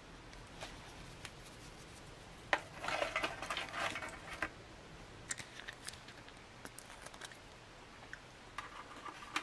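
Hard rye crisp bread crackling and snapping as it is handled and broken. A sharp snap comes a couple of seconds in, then a burst of crackles, then scattered light clicks.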